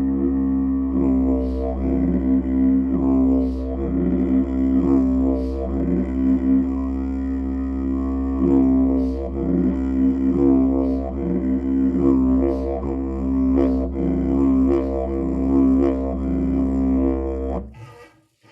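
Wild-cherry didgeridoo played as a steady low drone, with a rhythmic pulse of shifting overtones about once a second. It stops abruptly near the end.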